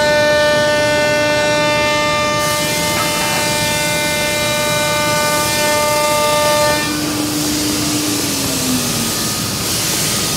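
CNC router spindle of a WoodMaster WM-1325RBS running with a steady high whine over cutting and dust-extraction noise while it machines wood panels. About seven seconds in the whine stops and a lower tone slides down in pitch, with a brighter hiss near the end.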